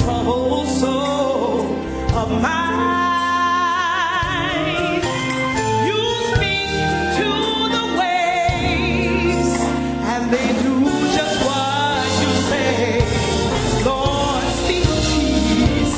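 Gospel song with a lead vocal singing wavering, melismatic lines with vibrato over a steady bass accompaniment.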